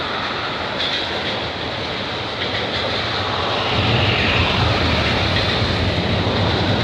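CN freight train's cars rolling across a railway bridge: a steady rumble that grows louder about four seconds in, mixed with road traffic passing underneath.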